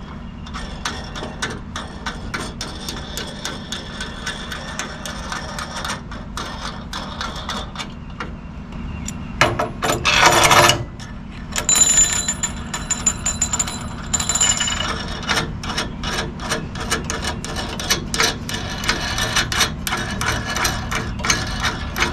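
Steel nuts and washers being threaded by hand onto long steel bolts: a rapid run of small metallic clicks and rattles, with a louder metal clatter about ten seconds in.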